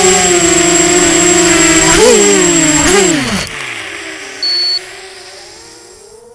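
Emax Nighthawk 250 racing quadcopter's brushless motors and propellers whining steadily, with two short throttle blips about two and three seconds in, then cutting off suddenly and winding down. A short high beep follows about a second later.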